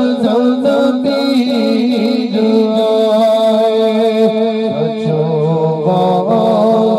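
A man singing a naat, an Islamic devotional song, into a microphone, holding long notes that waver and bend in ornament.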